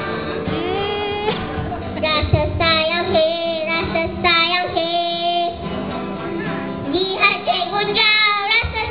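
A group of young children singing a Malay song together, with acoustic guitar accompaniment.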